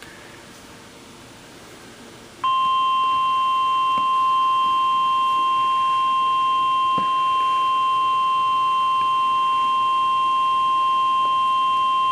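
Emergency alert attention tone: a single steady beep of about 1050 Hz, the NOAA Weather Radio warning tone. It comes in sharply after about two and a half seconds of faint hiss and holds unbroken to the end. Here it announces a severe thunderstorm warning.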